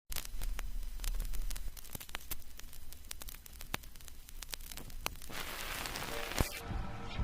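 Crackling static hiss with many scattered clicks and pops over a low hum, like a record crackle. A louder hiss swells in about five seconds in, and music begins to fade in near the end.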